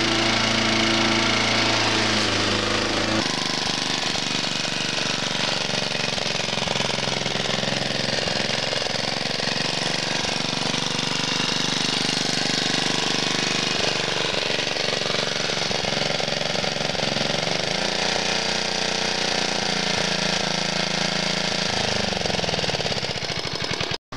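Petrol engine of a Honda-powered Shanks roller lawn mower running steadily while cutting grass. Its note falls near the end.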